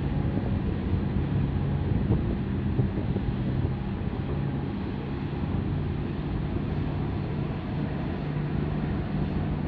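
Low, steady hum of a large container ship passing close by, under the rumble of wind on the microphone.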